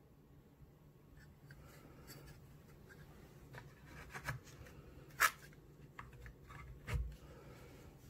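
Hands fitting a Zippo lighter into its plastic-and-card display box: light rubbing and small clicks, one sharp click about five seconds in, and a dull thump about seven seconds in as the box is set down on the mat.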